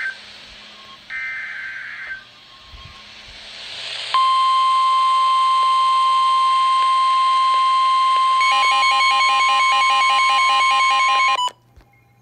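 NOAA Weather Radio alert sequence: a short burst of the warbling SAME data header, then the loud, steady 1050 Hz warning alarm tone held for about seven seconds, with a pulsing beep pattern joining in for its last three seconds before both cut off suddenly. It signals that a warning message is about to be broadcast.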